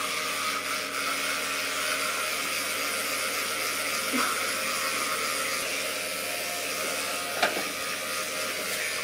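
A small motor running steadily with a continuous whirring noise. There is a single sharp click about seven and a half seconds in.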